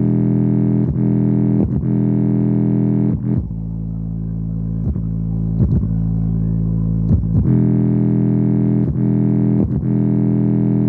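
Bass-heavy music played loud through a JBL Charge 4 portable Bluetooth speaker. Deep held bass notes change pitch every few seconds under a beat of sharp hits.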